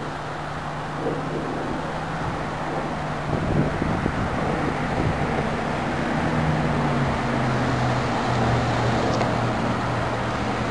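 A steady engine hum over outdoor noise, slowly getting louder, its pitch dropping a little about seven seconds in.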